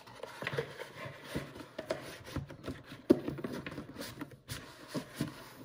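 Hands handling a tablet's retail box and its packaging: irregular rustling with light taps and knocks, and one sharper knock about three seconds in.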